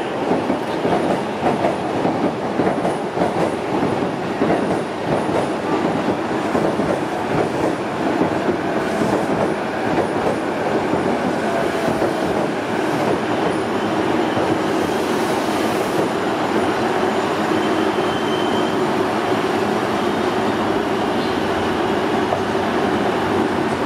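JR East E233-series electric commuter train at a station platform, with the dense rattle and rumble of rail traffic; about halfway through it pulls out and rolls away, the sound settling into a steady run with a held hum.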